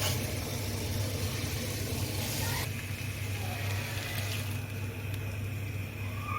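Stovetop cooking: a steady low hum under a sizzling hiss, and the hiss quietens about two and a half seconds in.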